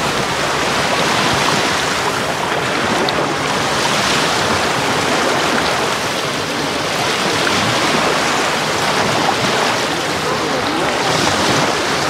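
Small sea waves breaking and washing over shallow sand, heard from right at the waterline: a steady wash of surf that swells slightly every few seconds.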